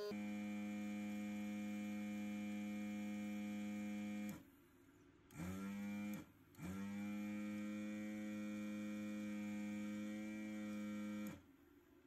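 Steady electric hum with a stack of overtones, switched on and off: each time it starts it slides up to its pitch within about half a second. It stops about four seconds in, comes back briefly, and after a short break runs again for about five seconds before cutting off.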